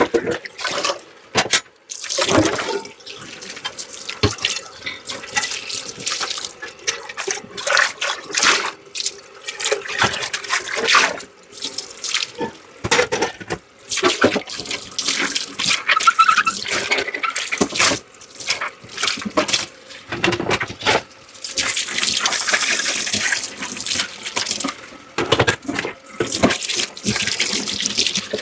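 Dishes being washed by hand in a sink: tap water running and splashing, with frequent knocks and clinks of dishware. The running water is steadier and louder for a couple of seconds a little past the middle.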